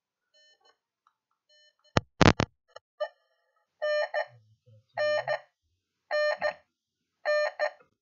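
Simulated alarm buzzer in a Proteus circuit simulation beeping four times, about a second apart, in the second half: the burglar alarm set off by the door being opened with the pressure sensor reading raised. About two seconds in there is a short cluster of sharp knocks, the loudest sound.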